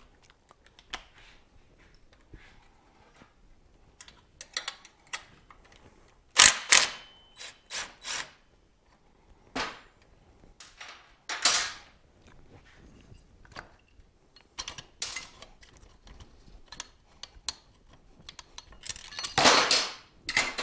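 Metal parts and hand tools clanking and clicking during motorcycle disassembly, as a string of irregular knocks, one with a short metallic ring about six seconds in. Near the end comes a harsher noise lasting over a second.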